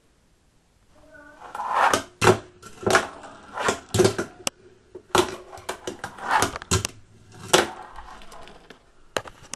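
Wooden fingerboard being ridden and flipped: about ten sharp clacks of the deck and trucks striking a hard surface, with wheels rolling between them, starting about a second in.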